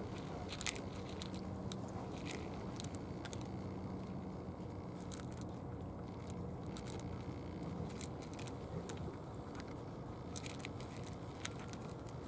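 Two cats eating dry cat food from plastic bowls: scattered, irregular small crunches and clicks as the kibble is chewed.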